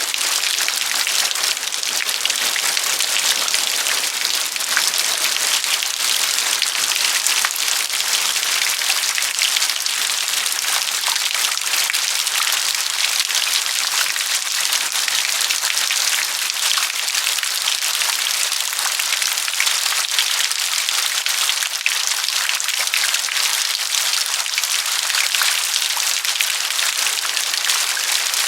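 Steady rain: a dense, even patter of many small raindrop hits, with no let-up.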